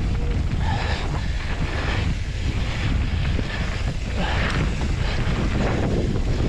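Wind rushing over an action camera's microphone on a mountain bike riding fast down a dirt forest trail, a steady low rumble with irregular swells of tyre noise from the knobbly tyres on the dirt.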